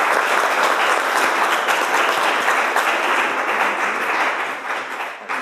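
Audience applauding, a dense spread of handclaps that thins out and fades near the end.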